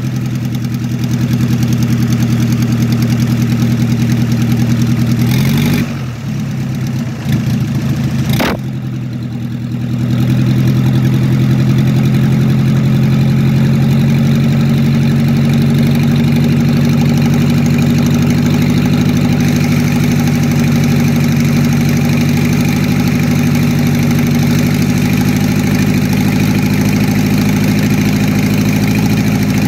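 TDI PD (pump-nozzle) turbo-diesel engine idling. About six seconds in its note dips and wavers, with a sharp click a couple of seconds later. It then settles back into a steady idle.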